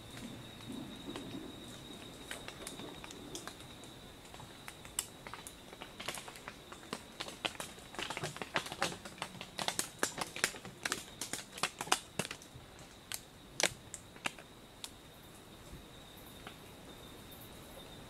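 Short-eared brushtail possum giving its knocking, staccato coughs: a run of sharp clicks that starts sparse, comes thick and fast in the middle, then thins out near the end. A steady high-pitched whine runs behind it.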